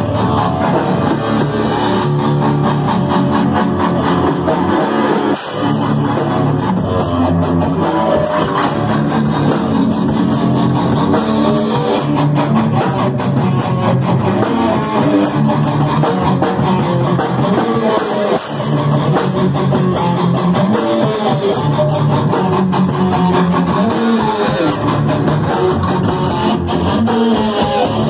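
Rock band playing: electric guitar, bass guitar and drum kit, with the cymbals coming in after a brief break about five seconds in.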